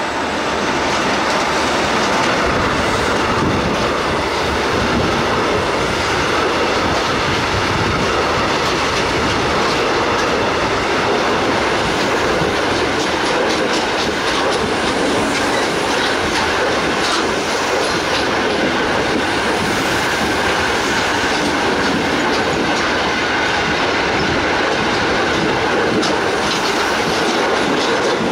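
Coal train's freight wagons rolling past close by, wheels clattering steadily over the rail joints, with a thin squeal from the wheels.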